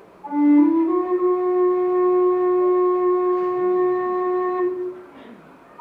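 A small end-blown flute playing one long held note that slides up a step at its start and is sustained for about four and a half seconds before stopping, heard over a hall's speakers. A new note begins right at the end.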